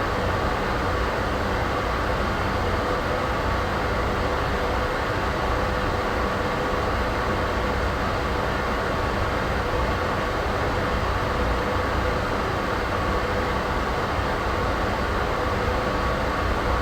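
Steady ambient noise track: an even hiss over a heavier low rumble, with faint steady hum tones and no changes or events.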